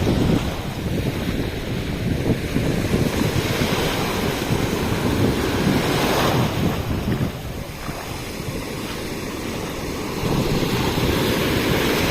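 Sea waves surging and washing up on a beach, with wind buffeting the microphone. A wave breaks and washes in about six seconds in, it eases off for a few seconds, then swells again near the end.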